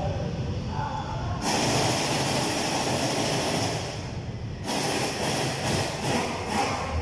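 A loud, steady hiss that starts about a second and a half in, stops briefly about four seconds in, then resumes with some pulsing.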